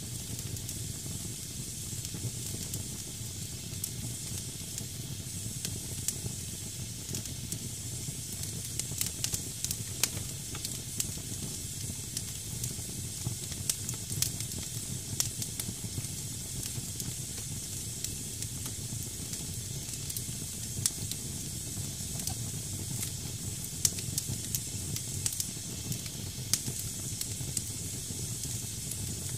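Damp firewood burning in a fireplace: a steady hiss as the wet wood steams, with frequent small crackles and a few louder pops.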